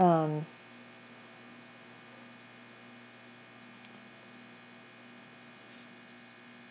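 Steady faint electrical hum and hiss of the recording, after a short falling "hmm" from a man's voice at the start.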